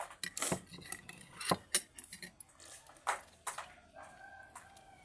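Spoon clinking and knocking against dishware: a handful of short, sharp clinks, the loudest about two seconds in, then a faint steady hum near the end.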